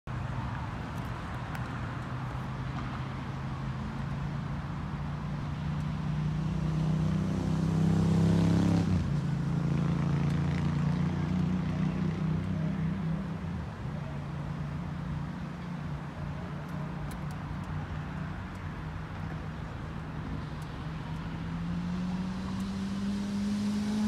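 Kawasaki ZX-6R inline-four sport-bike engine idling. About six seconds in it revs up, and it drops sharply back to idle a few seconds later. Near the end it climbs slowly again.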